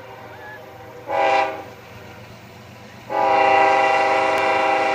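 Air horn of a CSX ES44AC diesel locomotive leading a loaded coal train, a chord of several tones: the end of one blast at the start, a short blast about a second in, then a long blast from about three seconds in lasting about two seconds. The long-short-long sequence is the tail of the grade-crossing horn signal as the train approaches the crossing.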